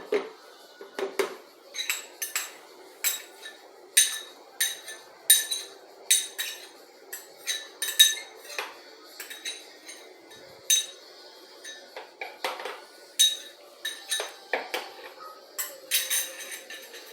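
A metal spoon clinking against a dish or the blender jar while ingredients are spooned in: dozens of sharp, ringing taps at an irregular pace, roughly one or two a second.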